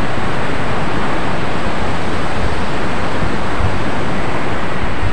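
Surf from waves breaking on a beach, a loud steady wash, with wind rumbling on the microphone.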